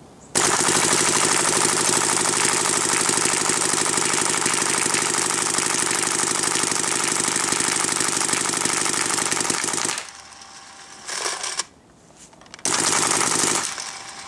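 Electronic paintball marker firing in ramping mode at 12.5 balls per second: a fast, even string of shots for about ten seconds, then two shorter bursts near the end.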